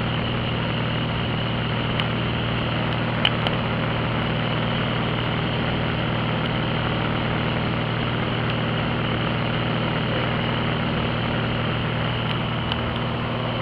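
Steady drone of a small propeller airplane's engine and airflow, heard from inside the cabin, with a couple of short clicks about two and three seconds in.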